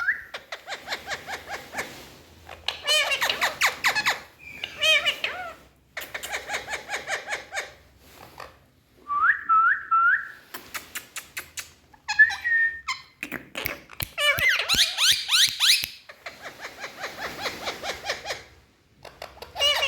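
Indian ringneck parakeets calling: trains of short chattering notes at several a second, squeaky calls, and a few short rising whistles about halfway through.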